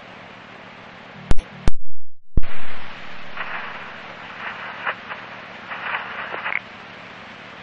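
Police scanner radio hiss and static on an open channel between transmissions, with sharp squelch clicks about a second and a half and two and a half seconds in around a brief dropout, then faint garbled fragments under the hiss.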